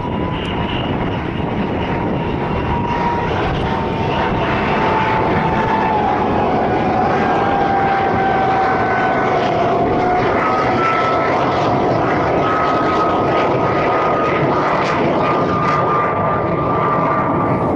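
Military jet aircraft flying over: a loud, steady roar of jet engines with high whining tones that slowly fall in pitch as the aircraft pass.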